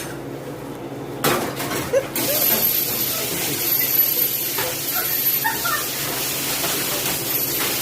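A steady spraying hiss that starts a little over two seconds in, with a few faint short squeaky whines.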